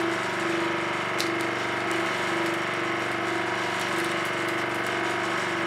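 Scroll saw running steadily with nothing being cut, its motor and reciprocating blade giving an even mechanical hum.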